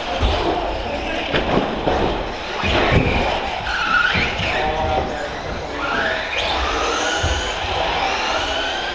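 Electric motors of RC short-course trucks whining up and down in pitch as the cars accelerate and brake, with a few thumps.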